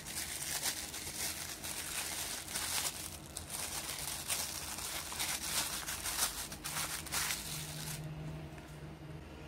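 Thin clear plastic packaging bag crinkling in the hands as it is opened and a sheet of grip tape is slid out. The crinkling is dense and irregular and stops about eight seconds in.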